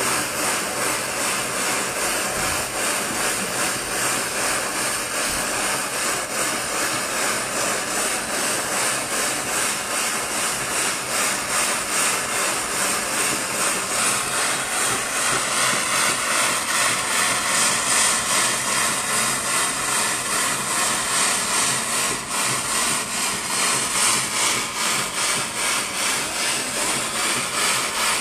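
Jeweller's gas torch burning with a steady hissing flame, played on a silver filigree piece to heat it.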